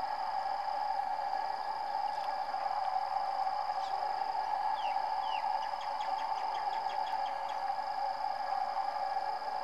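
A steady, even drone, with a few short falling bird chirps and then a quick run of high bird notes in the middle.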